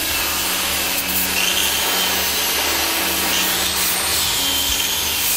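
Electric arc welding on steel rods, a steady loud hiss from the welding arc, with soft sustained music notes underneath.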